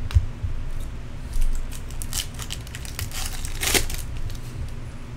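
Foil wrapper of a trading-card pack crinkling and tearing as it is opened by hand, with a few sharp crackles in the second half.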